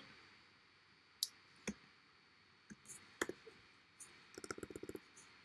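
Faint computer mouse clicks: a few single clicks spaced out, then a quick run of about a dozen small ticks about four seconds in.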